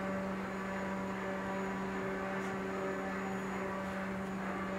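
Steady low hum with fainter tones above it, typical of mains hum or shop equipment running.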